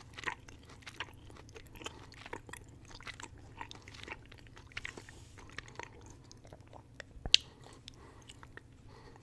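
Close-miked mouth chewing candy: irregular wet clicks and smacks of teeth, tongue and lips. One sharp click about seven seconds in is much louder than the rest.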